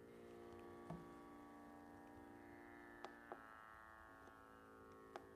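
Soft Indian drone from an electronic tanpura box: a steady, buzzing chord of held tones, renewed by a plucked note every second or two, some of the plucks coming in quick pairs.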